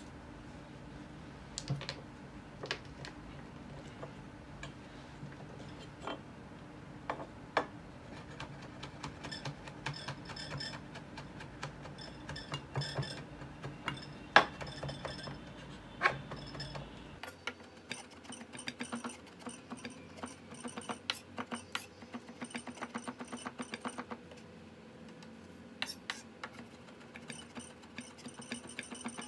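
Garlic being smashed and peeled on an end-grain wooden cutting board: scattered knocks, one of them loud near the middle. After that, a broad cleaver-style knife mincing it with quick runs of taps on the wood.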